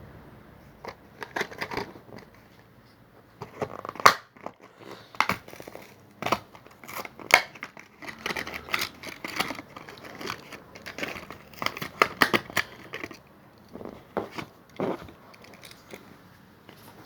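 A Hot Wheels blister pack being opened: stiff plastic crinkling and cardboard tearing in irregular runs of sharp crackles and snaps, with short pauses between.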